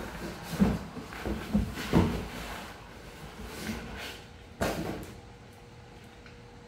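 A run of irregular knocks and clunks, loudest about two seconds in and again about four and a half seconds in, followed by a faint steady hum.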